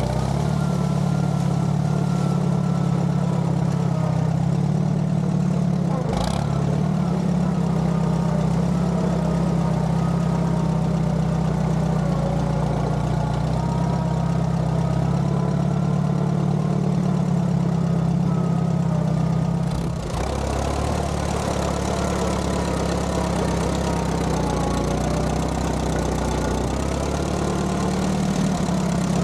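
Allis-Chalmers B tractor's four-cylinder engine running steadily as the tractor drives, with a single brief knock about six seconds in and a small change in the engine sound about twenty seconds in.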